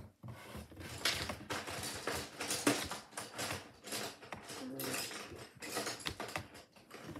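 Colouring pencils being dumped out and rummaged through: an irregular run of light clicks, rattles and knocks.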